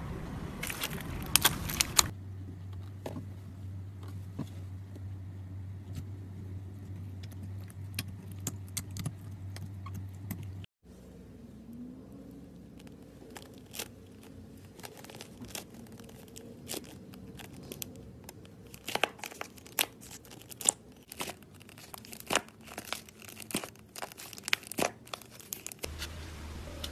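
Slime being squeezed, stretched and pressed by hand, making quick trains of crackling and popping clicks. The clicks are thickest at the start and through the second half. In between they are sparse, over a steady low hum.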